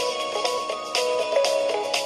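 A Nokia 6085 mobile phone playing a ringtone: an instrumental melody of held notes over a steady beat of about two hits a second.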